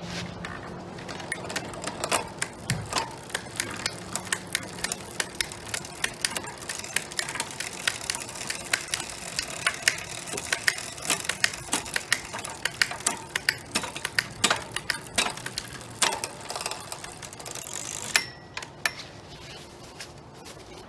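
Bicycle drivetrain turning, most likely on a repair stand: the chain runs over the rear cassette and derailleur pulleys with rapid, irregular clicking. The clicking stops about 18 seconds in.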